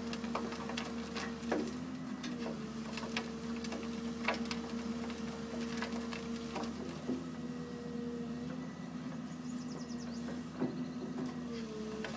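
Rotary screening bucket on an excavator turning, with irregular clicks and rattles as soil and stones tumble in its mesh drum, over the steady drone of the excavator's diesel engine and hydraulic drive, whose pitch wavers briefly a few times.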